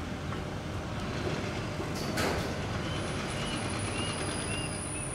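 Airbus A321 jet engines heard at a distance while the airliner taxis: a steady low rumble with a thin high whine in the second half. A brief sharp sound comes about two seconds in.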